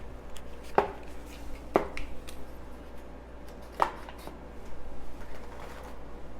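Sharp knocks and lighter clicks of hard parts being handled while upgrade attachments are fitted to an espresso machine, with three louder knocks in the first four seconds.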